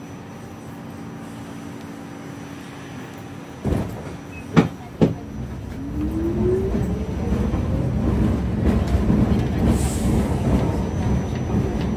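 Subway car heard from inside: a low steady hum while standing, then a short loud noise and two sharp knocks about four to five seconds in, after which the train pulls away, the traction motors' whine rising in pitch over a growing rumble of wheels on rail.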